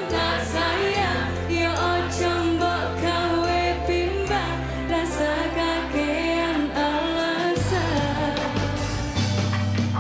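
Woman singing a dangdut song live into a microphone, backed by a band with steady bass and regular drum beats; her voice bends and wavers on held notes.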